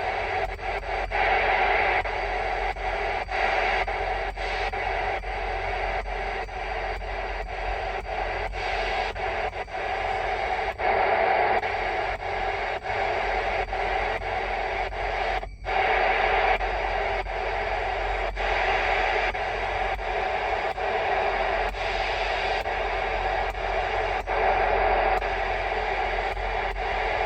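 Static and hiss from a Uniden PC78LTW CB radio's speaker with no station coming through, with faint regular ticking in it. The sound cuts out for an instant about fifteen seconds in.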